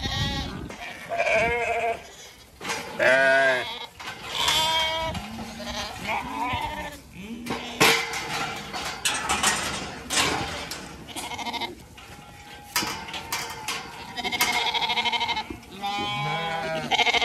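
A flock of Zwartbles sheep and lambs bleating, many quavering calls overlapping one after another, high and low voices mixed, as they crowd in expecting feed. A few sharp clicks and knocks come about eight to eleven seconds in.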